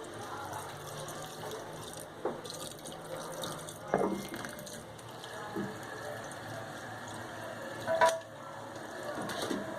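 Shrimp-shell stock being poured into the paella pan, a steady run of liquid, with two sharp knocks, the louder one near the end.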